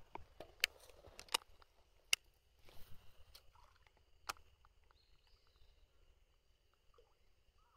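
A few sharp clicks, about half a second, one and two seconds in and again near four seconds, with some rustling between them, from an angler handling a baitcasting rod and reel. A faint steady high tone sits underneath.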